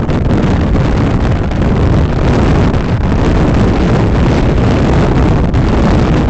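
Loud, steady rush of wind over the microphone of a camera on a moving vehicle, mixed with the vehicle's road noise.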